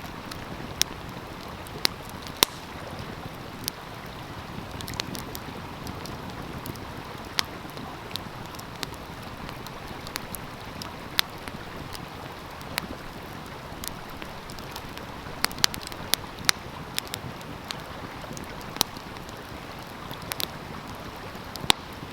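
Wood fire crackling with irregular sharp pops, over the steady rushing of a stream.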